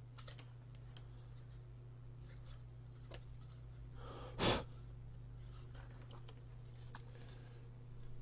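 A low steady hum with a couple of faint clicks, and one short, sharp breath through the nose about four and a half seconds in.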